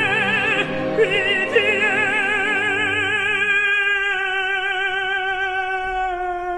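Operatic tenor singing in French with wide vibrato over orchestral accompaniment. About halfway through he settles on one long held note as the orchestra drops away beneath it.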